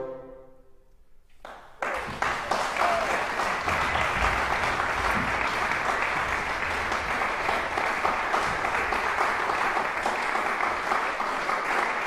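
The final chord of a bassoon ensemble dies away in the hall's reverberation. About two seconds in, an audience breaks into steady applause.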